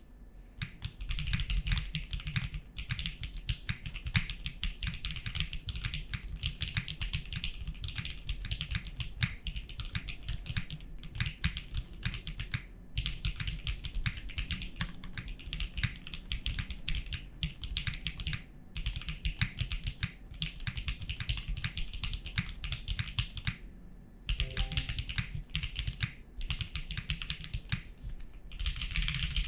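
Fast continuous typing on a custom mechanical keyboard with Nixies linear switches on 63.5 g springs and a polycarbonate half plate, with SA-profile keycaps: a dense stream of key clacks broken by a few brief pauses.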